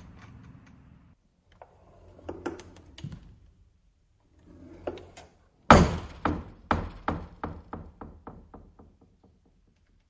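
Wooden screen door on a metal spring hinge: a few light knocks and clicks, then the door snaps shut with a loud slap about halfway through. A rattle of about a dozen quick knocks follows, coming faster and fading as the door bounces against its frame.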